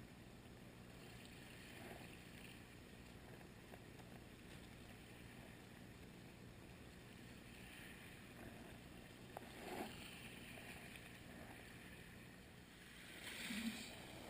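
Faint beach ambience: gentle surf washing in, swelling briefly twice, about ten seconds in and again near the end.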